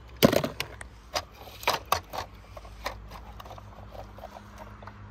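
A series of sharp knocks and clatters of hard objects: the loudest just after the start, then several more over the next few seconds, growing lighter and sparser.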